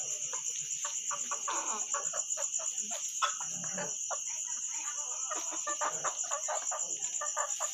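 A steady, high-pitched insect trill runs throughout, with Ko shamo bantam pullets making many short, soft clucks and scuffles over it.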